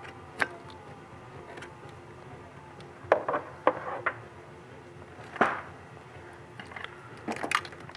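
Plastic wiring connectors and wire loom being handled, clicking and rattling in short bursts: a cluster about three to four seconds in and more near the end, over a steady hum.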